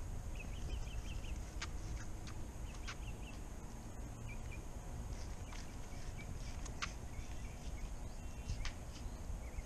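Outdoor ambience: a steady low rumble of wind on the microphone, with faint short bird chirps a few times and scattered light clicks.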